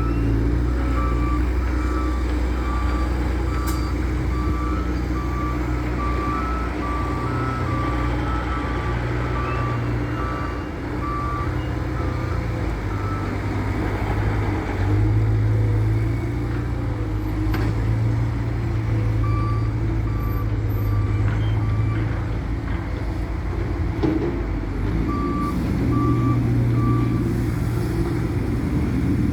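Loader's diesel engine running under load with its reversing alarm beeping about once a second, stopping for several seconds partway through and then beeping again in two short runs.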